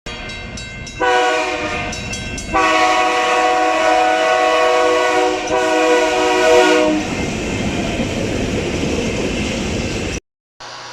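Train horn sounding: a few quick short toots, a blast of about a second, then a long blast of about four seconds. After the horn stops, the noise of the train running on the rails carries on until it cuts off abruptly near the end.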